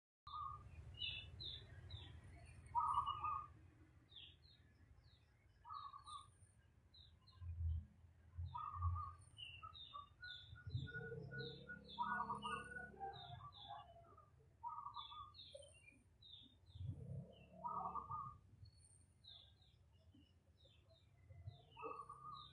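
Birds chirping: many short, high calls overlapping, with a lower, louder call repeating every two to three seconds.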